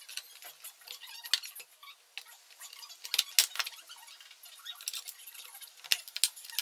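Clicks, taps and light scraping of a stripped-down IKEA SY sewing machine's white plastic housing and bare metal frame being handled and fitted together. There are a few sharper knocks, the loudest about three seconds in and near the end.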